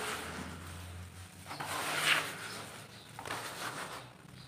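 Hands scooping and crumbling clumps of roasted dirt in a tub, in three crumbling, rustling swells, the loudest about two seconds in.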